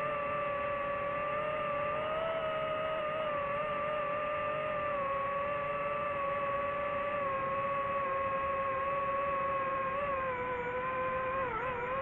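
Quadcopter drone's propellers and motors whining steadily as heard from its on-board camera, with a slight wavering of pitch and a brief dip near the end as the throttle shifts.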